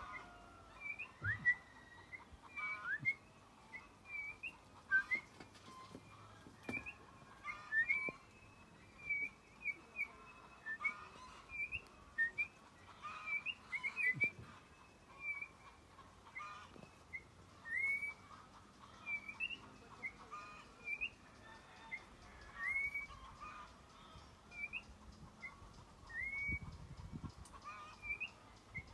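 A toche (oriole) calling in a tree: short whistled chirps, many with a quick upward flick, repeated again and again about once or twice a second.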